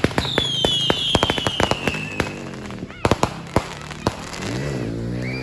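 Consumer fireworks going off: a rapid string of sharp bangs and crackles, with a whistle that falls in pitch over the first two seconds. The bangs thin out in the second half.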